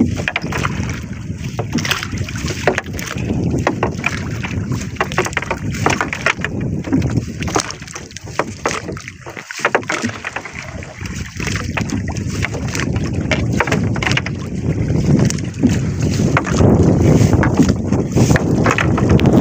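Wind buffeting the microphone over water sloshing against a small wooden outrigger boat, with scattered knocks and rustles as a gillnet and its floats are handled against the hull. The wind grows louder near the end.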